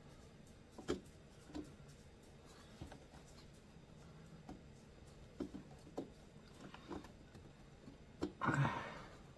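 Scattered light clicks and knocks of plastic and metal parts being handled while refitting a carburetor into a handheld blower's housing, with a louder scrape or rustle near the end.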